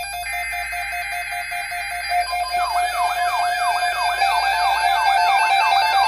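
Several NOAA weather alert radios sounding their alarms together for an incoming severe weather alert: pulsing electronic beeps, joined about two seconds in by a fast-repeating siren-like sweep, roughly three rising sweeps a second, that grows louder.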